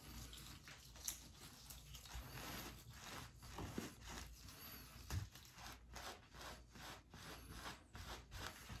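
Faint, rapid rubbing of a cloth over the thin skin base of a hairpiece, about two to three strokes a second, scrubbing off leftover adhesive residue that has been sprayed with an alcohol-based cleaner.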